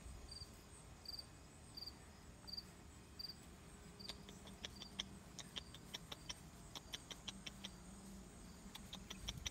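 Cricket chirping faintly and evenly, about one short chirp every three-quarters of a second. From about four seconds in, a scatter of quick soft ticks and rustles joins it: footsteps across the lawn.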